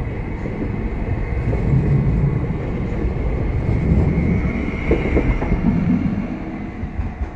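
Abellio Stadler FLIRT electric multiple unit moving out along the platform: a continuous rumble of wheels on rail with a steady high whine over it, and a few clacks over rail joints about five seconds in.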